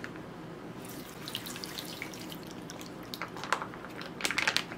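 Icy dongchimi broth pouring from a pouch onto noodles in a ceramic bowl. It starts trickling and splashing about a second in, with a few sharper, louder splashes near the end.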